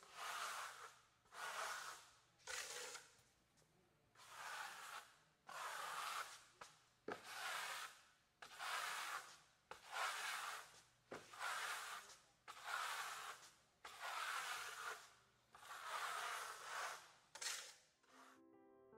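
Steel smoothing trowel scraping wet fine-sand stucco finish across a wall in repeated strokes, about one a second, as the second coat is drawn up and laid down smooth. Two sharp clicks come between the strokes.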